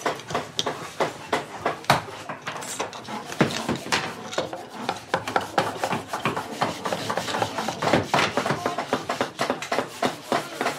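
Wood being worked by hand with quick, uneven scraping strokes, several a second, as in sanding or rasping.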